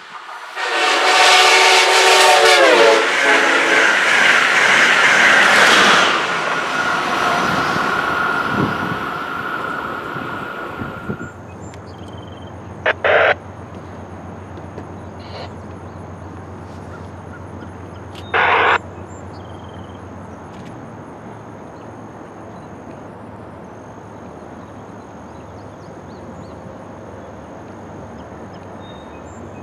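Locomotive horn blowing loudly as a train passes, its chord dropping in pitch, followed by the train's noise fading away over the next several seconds. After that a steady low rumble continues, broken by two short loud bursts about a third and two-thirds of the way in.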